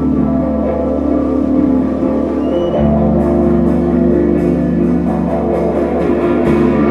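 Rock band playing live: electric bass and electric guitar hold long, sustained notes, the low bass note changing about three seconds in and again near the end. Cymbal strikes join in from about halfway through.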